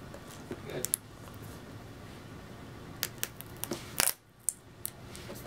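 Folding knife cutting the tape on a cardboard product box: a scattering of sharp clicks and taps as the blade catches and scrapes along the box edge, the loudest about four seconds in.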